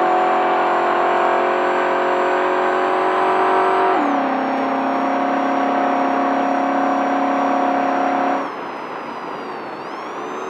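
Race truck's engine running hard at steady high revs, heard from inside the truck. About four seconds in, its note steps abruptly down in pitch. A little past eight seconds the engine note drops off and turns quieter, then starts to climb again near the end.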